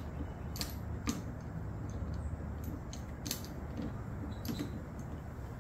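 Light metallic clicks and taps at irregular intervals as a rifle scope is handled and fitted back onto an Air Venturi Avenger PCP air rifle, over a low steady hum.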